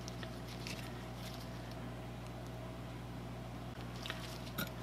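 A few faint, light metallic clicks as steel balls are worked one by one into a ball screw's ball nut recirculation circuit, the sharpest about four and a half seconds in, over a steady low hum.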